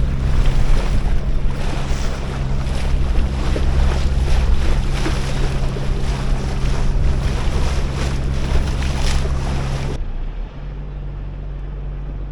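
A boat's engine runs steadily under way, with wind buffeting the microphone and water rushing past. About ten seconds in, the wind and water noise cut off abruptly, leaving a quieter, steady engine hum.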